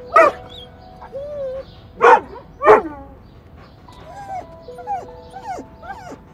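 Golden retriever barking three times in quick succession, then giving several softer, shorter whines.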